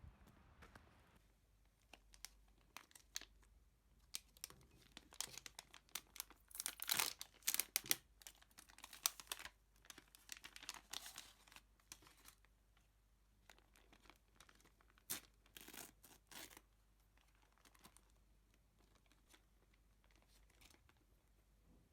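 Handling noises: irregular spells of crinkling and rustling, busiest through the middle, then mostly quiet near the end.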